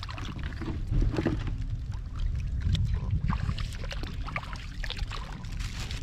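Splashing and sloshing of shallow water as someone wades barefoot and feels about in it by hand, with scattered drips and small splashes over a steady low rumble.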